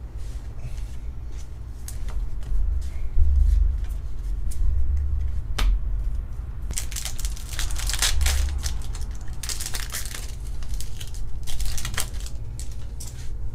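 Foil wrapper of a Pokémon TCG booster pack crinkling and tearing as the pack is opened and the cards are pulled out, in several bursts with sharp crackles, over a steady low hum.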